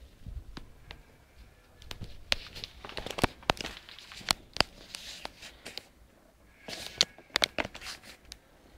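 Footsteps crunching on gravel and dirt: irregular crunches and clicks in two bursts, one across the middle and a shorter one near the end.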